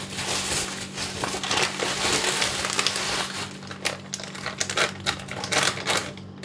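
Plastic bag of granulated sugar crinkling as it is handled and pulled open, a dense run of short crackles.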